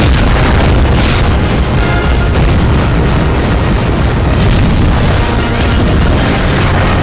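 Loud film soundtrack of a space-battle scene: continuous booming explosions and low rumble mixed with a musical score.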